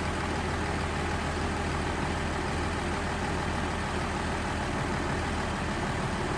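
2008 GMC Acadia's 3.6L V6 idling steadily while misfiring: cylinders 3 and 5 are dead and a P0300 random-misfire code is setting.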